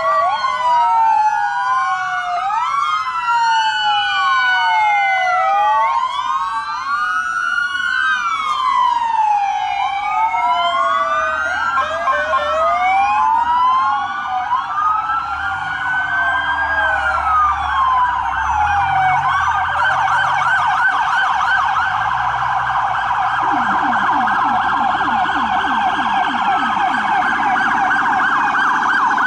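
Several police car sirens sounding at once, their wails overlapping in slow rising and falling sweeps. About two-thirds of the way through they change to a fast yelp, and a lower, fast-pulsing siren joins near the end.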